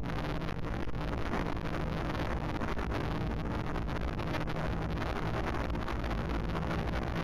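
A motor running steadily at one pitch, with wind noise on the microphone.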